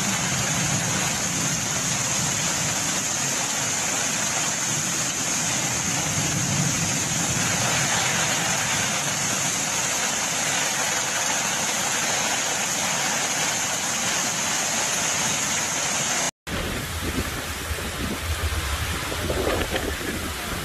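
Heavy tropical-storm rain and rushing floodwater make a steady, loud hiss. About three-quarters of the way through, the sound cuts briefly and resumes as heavy rain with a low rumble underneath.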